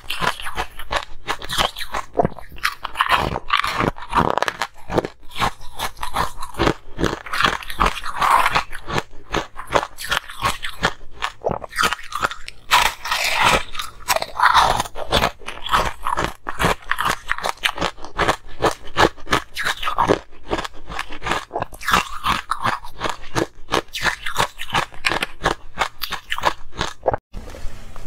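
Ice cubes being bitten and chewed close to a clip-on microphone: a dense, irregular crunching and cracking of ice that runs on without a break.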